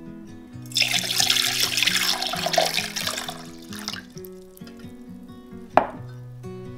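Kitchen tap running into a sink for about three seconds, the water splashing, then it stops. A single sharp knock comes near the end.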